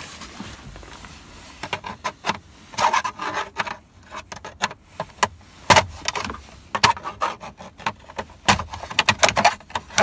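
Screwdriver prying at the plastic upper steering-column cover of a 2007 Dodge Ram 1500, with irregular sharp plastic clicks, creaks and scrapes as the cover is worked loose.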